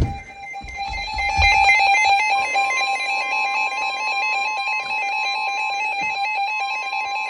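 Emergency Alert System attention tone between weather warnings. A steady electronic tone is joined by a second, higher steady tone about two and a half seconds in, with a fast warbling pattern above them. A short thump comes at the very start.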